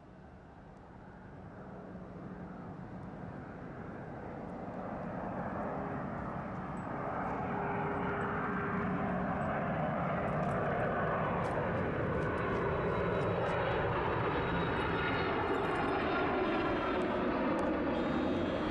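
Jet airliner's engines growing louder over the first several seconds, then holding as a loud, steady rush with a whine. Slowly sweeping tones run through it in the second half.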